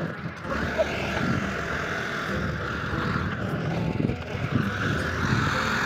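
Farm tractor's diesel engine running steadily while it hauls a trolley loaded with earth.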